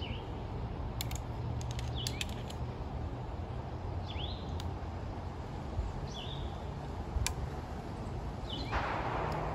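A small bird chirping: short downward-sliding calls about every two seconds, over a steady low outdoor rumble. A few light clicks come in the first couple of seconds and again a little past the middle, and a short hiss rises near the end.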